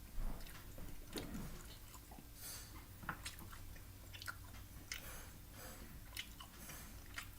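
A person chewing a bite of a hot bagel dog with the mouth close to the microphone, faint wet smacking and crunching clicks.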